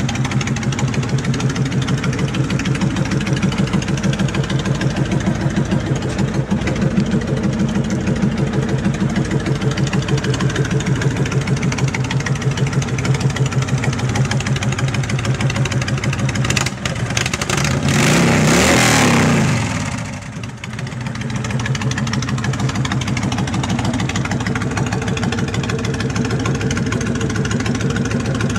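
Honda VTX 1300's V-twin idling through Vance & Hines Big Shots aftermarket exhaust pipes, with an even pulsing beat. About two-thirds of the way through the throttle is opened once: the revs climb and fall back over a few seconds, then it settles back to idle.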